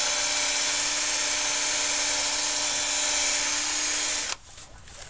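Cordless drill spinning a Mothers PowerBall foam polishing ball against a plastic headlight lens: a steady motor whine over a hiss, which cuts off suddenly about four seconds in.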